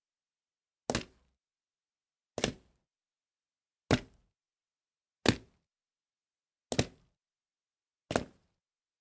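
Six separate small water splashes, one about every second and a half. Each is short and sudden and fades quickly, with silence between.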